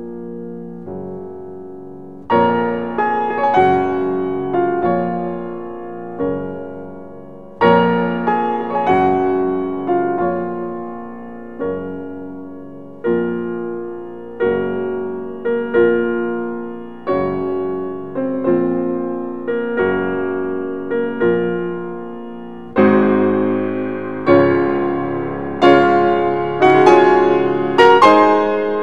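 Background solo piano music: gentle notes struck about once a second, each ringing and fading, the playing growing fuller near the end.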